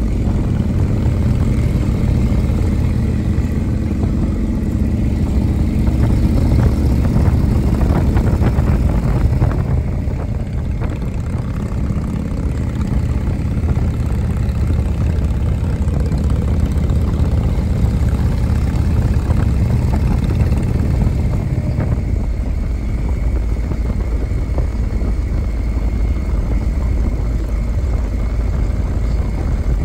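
A vehicle's engine running steadily at cruising speed, a loud low drone whose note changes about 22 seconds in.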